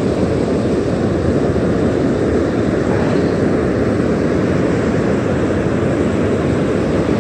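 Steady low rumble of wind and surf.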